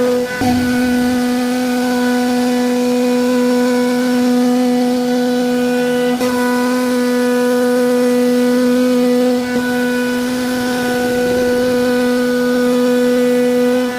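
Wood-carving CNC router's spindle running at a steady high speed, a constant whine with overtones, as it cuts a design into a wooden door panel. The pitch dips briefly just after the start and then holds.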